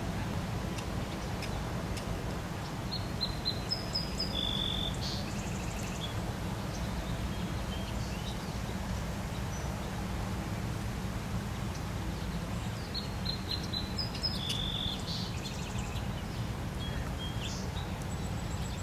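A steady low outdoor rumble, with a songbird singing the same short chirping phrase twice, a few seconds in and again about ten seconds later.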